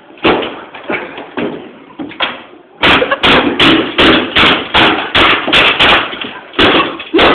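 Loud, rapid banging: a few knocks, then a run of hard strikes about three a second starting about three seconds in, with more near the end.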